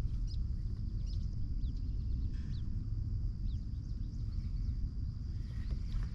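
Scattered short, falling bird chirps over a low steady rumble outdoors.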